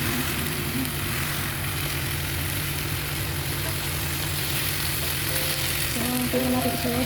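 Food frying in hot oil, a steady sizzle, with a music melody coming in about five seconds in.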